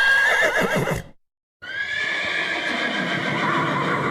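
Horse whinnying: one short, wavering call ending about a second in, then after a brief silence a long whinny that starts about one and a half seconds in.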